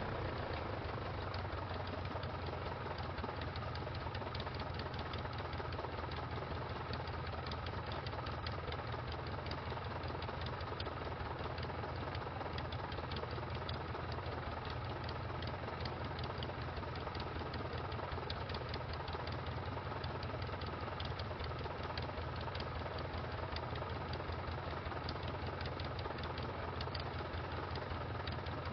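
Engine of a 1946 Aeronca 7AC Champ, a small air-cooled flat-four, idling steadily with a fast, even beat while the taildragger taxis on grass after landing.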